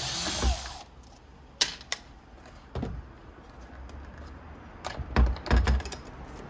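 Components inside an opened iMac being worked loose by hand: scattered sharp clicks and dull knocks of parts and tools. A short hissing burst comes at the very start.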